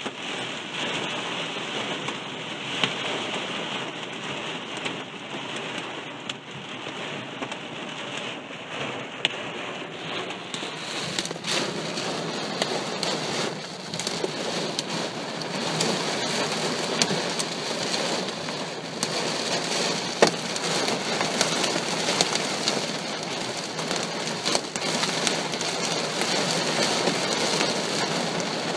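Heavy thunderstorm rain pelting down on surfaces, a steady downpour with many sharp individual hits; it becomes heavier and denser about a third of the way in.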